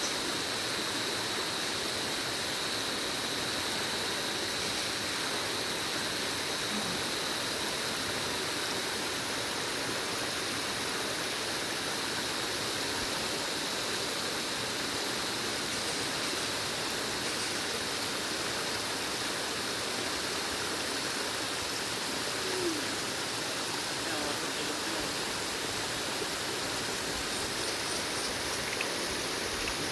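Flowing water rushing steadily, like a stream over rocks.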